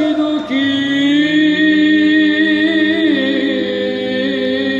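A solo male voice singing Byzantine Orthodox chant in Arabic, drawing out a long melismatic phrase on held, slowly shifting notes over a steady low drone.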